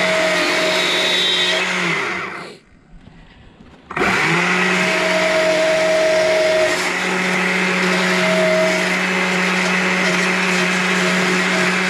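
Stihl chainsaw running at high revs, cutting into a small log during carving. It dies down about two seconds in and comes back sharply at high speed about four seconds in, then runs steadily.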